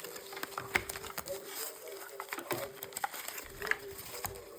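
Irregular small clicks and taps of hands handling packaging and the mouse, over a faint steady hum.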